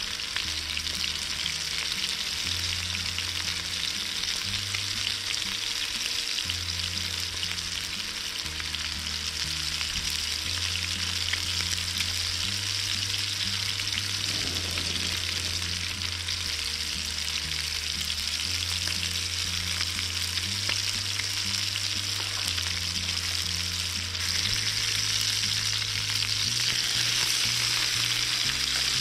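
Chicken breast frying in a pan over a gas camping stove, a steady sizzle that grows louder about 24 seconds in. Background music with a low bass line runs underneath.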